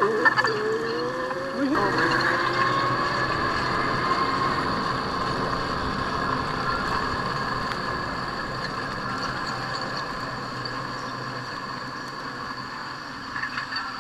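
Electric handcycle motor whining as the cycle rolls along, rising in pitch twice near the start, then holding steady and slowly getting quieter.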